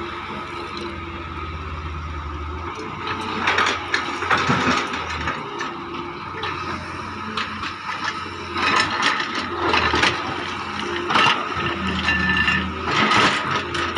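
Doosan DX140 excavator's diesel engine running steadily under load while its steel bucket scrapes and crunches through soil in several bursts, digging a trench.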